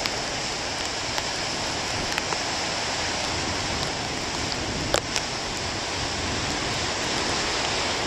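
Heavy storm surf breaking and washing over a rocky shore: a steady rush of churning water. A few light clicks sit on top, the sharpest about five seconds in.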